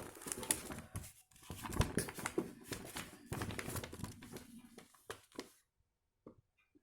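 Paper rustling and crinkling as the instruction booklet and papers are handled, with small clicks and handling noises; it stops about five and a half seconds in.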